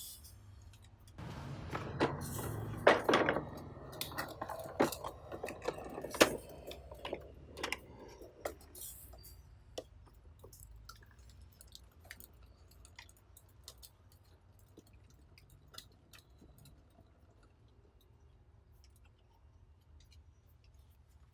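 Toys being handled by hand: several seconds of rustling and clicking with a few sharp clacks, then occasional faint clicks.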